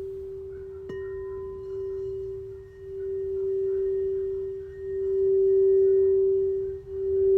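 Crystal singing bowl sounding one steady, deep-ringing note that swells and dips about every two seconds and grows louder, with a soft strike about a second in that adds fainter higher overtones.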